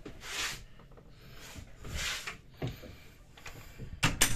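Two soft breaths close to the microphone, then a few sharp knocks, the loudest of them near the end, as the camera is carried through a small cabin.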